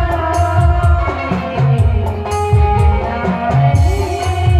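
A live band playing a Hindi film song through a PA: an electronic keyboard melody over a steady drum beat, with a woman singing into a microphone.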